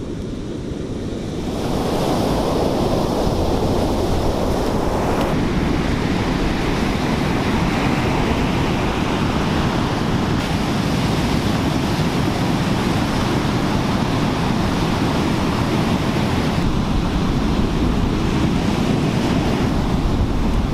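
Ocean surf breaking and washing up a sandy beach, a steady rush that gets louder about two seconds in, with wind on the microphone.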